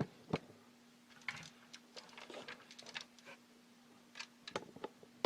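Scattered small clicks, taps and rustles of toy model buses being handled and set down, with a faint steady hum underneath.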